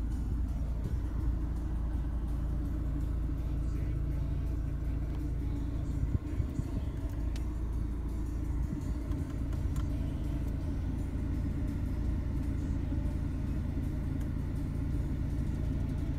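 A steady low rumble inside the cabin of a BMW 1 Series, the car's engine idling. A few faint clicks come from the iDrive controller being turned.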